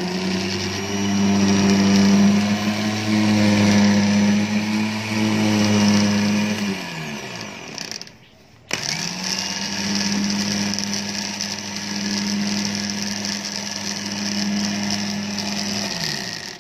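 Hi-Winch 9500 12 V electric winch motor and gearing running unloaded under wireless-remote control, twice: a steady whine for about seven seconds that spins down with falling pitch, then after a short gap it starts again and runs about eight seconds before spinning down.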